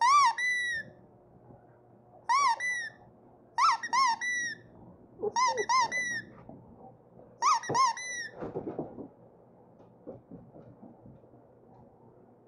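A rubber squeaky toy ball squeezed by hand, giving high-pitched squeaks that rise and then fall in pitch. There are about eight squeaks over some eight seconds: two single squeaks, then three quick pairs.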